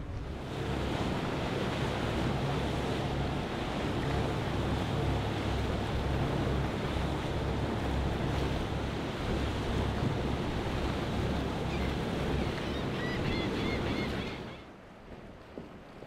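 Boat engines running through rough inlet water, with the rush of waves and wind buffeting the microphone; the whole din drops away suddenly near the end.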